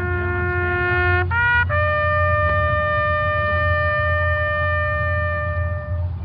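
A funeral-march phrase on a brass-sounding horn: a low note held about a second, a brief higher note, then a long high note held for about four seconds, over a steady low hum.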